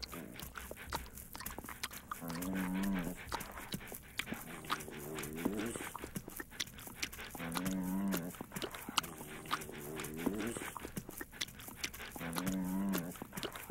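A bulldog puppy licking: rapid wet clicking and smacking, with a low, moo-like moan five times, short and longer moans in turn.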